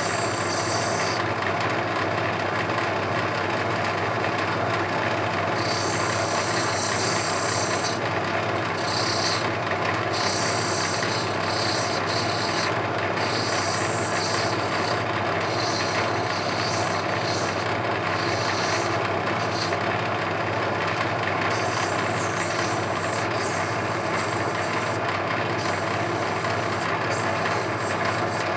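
Lapidary machine running with a steady low motor hum while a rough opal is ground on a wet diamond wheel. The gritty grinding hiss of stone on the wheel rises and falls many times.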